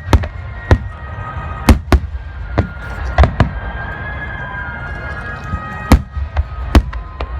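Aerial fireworks shells bursting in an irregular volley of sharp bangs, a dozen or so, some landing in quick pairs.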